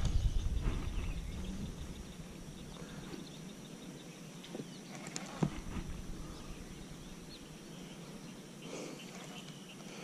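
Low rumble of the phone being handled in the first second or so. After that, quiet open-air ambience with a faint steady high tone and a few light clicks and knocks, the sharpest about five and a half seconds in.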